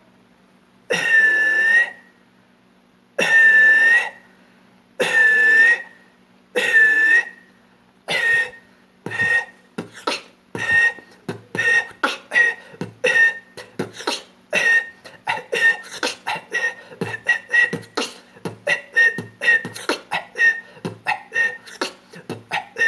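Beatbox cough whistle: a forced cough with a high whistle tone riding on top of it, made by pushing the jaw forward. First four drawn-out ones of about a second each, then a fast run of short ones, about two or three a second.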